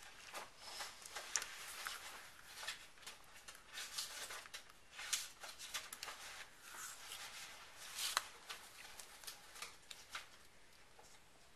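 Faint paper rustling and small scratchy ticks of fingers handling card stock, peeling the paper backing off foam pop dots stuck to a die-cut paper shape and pressing the shape onto a card. The ticks come irregularly, a few sharper ones standing out.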